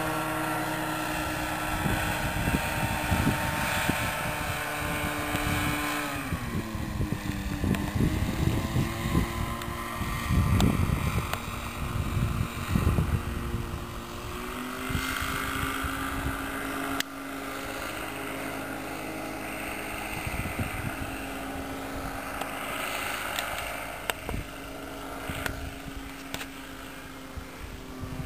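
Engine and propeller of a powered hang glider (ultralight trike) droning as it flies overhead. The pitch slides down about six seconds in, then holds steady. Wind buffets the microphone through the first half.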